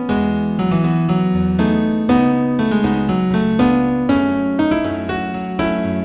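New age instrumental in E major played on a piano-like keyboard, with notes struck several times a second over held low bass notes.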